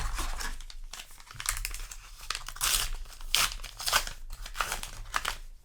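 Foil booster pack wrapper of trading cards crinkling and tearing in a string of irregular crackly bursts.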